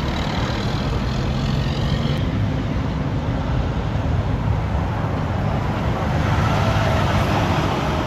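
Diesel semi-truck tractors driving past with a steady low engine rumble and road traffic noise, swelling a little near the end as one passes close; no horn sounds.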